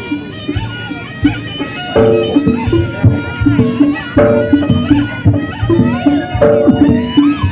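Reog Ponorogo ensemble music: a slompret, a reedy shawm, plays a melody of held, changing notes over drums and gongs.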